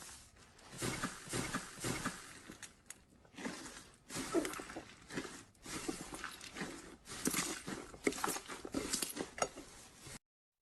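Slime being squeezed and pressed by hand, making irregular clusters of small sticky pops and crackles. It cuts off suddenly about ten seconds in.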